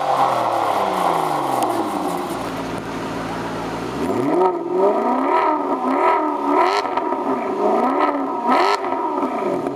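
Aston Martin DBS V12 pulling away, its note falling as it moves off. Then, from about four seconds in, a Maserati GranTurismo S's V8 is revved hard at a standstill: one rising rev, then a rapid run of throttle blips through its exhaust.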